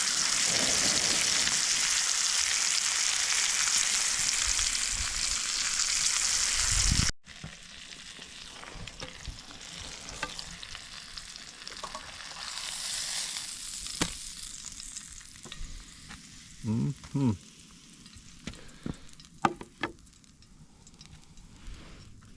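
Pork steaks frying in butter in a cast-iron skillet: a loud, steady sizzle that cuts off abruptly about seven seconds in. A much quieter sizzle follows, with scattered clicks and knocks.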